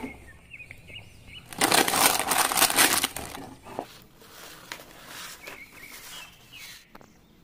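Paper rustling and crackling as a model kit's folded instruction sheet is handled and opened out, loudest for about a second and a half near the start, then lighter rustles and handling noises.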